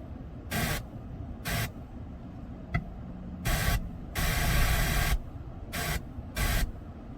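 Radio receiver being tuned across the band: a series of short bursts of static, one of them lasting about a second in the middle, with a single sharp click before it and a low hiss in between.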